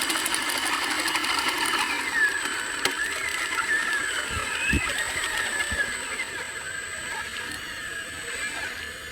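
Small electric motor of a radio-controlled model whining, its pitch rising and falling as it works, with a few dull low knocks near the middle.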